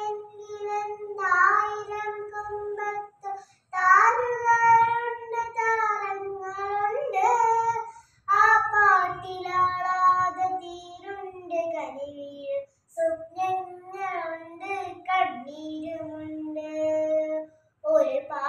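A young girl singing a Malayalam poem recitation, unaccompanied, in melodic phrases with long held notes and short breaks between lines.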